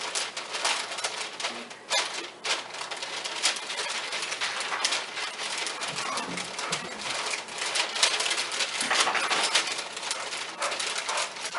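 Parchment paper crinkling and crackling in irregular bursts as it is pressed, creased and torn by hand over a round food-dehydrator tray.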